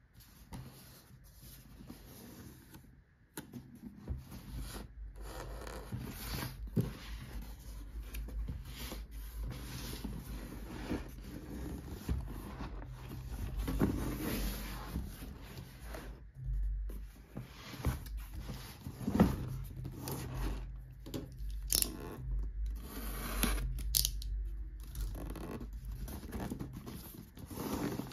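Cardboard shipping box being handled and shifted on a wooden tabletop: steady scraping and rubbing of cardboard, with scattered light knocks and clicks.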